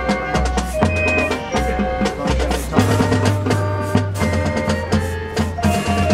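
High school marching band playing its field show: winds holding chords over a low bass line that moves in steps, with drums and mallet percussion striking throughout.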